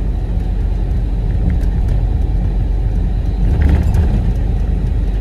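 Truck engine and road noise heard from inside the cab while driving, a steady low rumble, with a brief louder thump a little before four seconds in.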